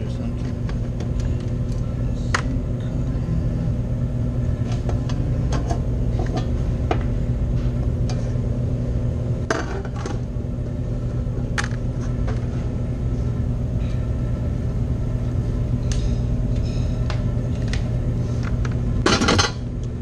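Walk-in freezer condensing unit running with a steady hum; its condenser fan motor is running slow, which the technician takes for a failing fan. Scattered metallic clicks and clinks of hands, tools and meter probes work in the unit's electrical box, with a louder brief scrape near the end.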